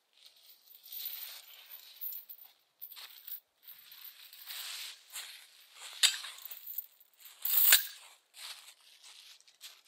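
Footsteps and movement through dry leaf litter, an irregular crunching and rustling. Two sharp clicks or snaps about six and about seven and a half seconds in are the loudest sounds.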